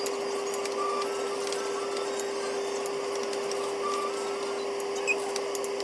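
A steady hum on a single unchanging pitch, like a running appliance or electrical hum, with a few faint light ticks.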